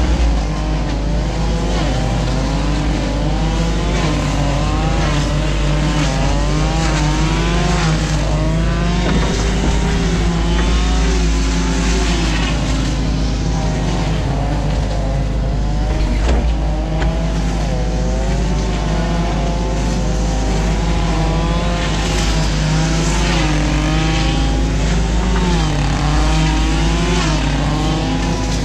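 New Holland Kobelco E 50.2 mini excavator heard from its cab: the diesel engine and hydraulics running steadily under working load. The pitch wavers up and down again and again as the arm and bucket dig silt out of the stream, with a few short knocks.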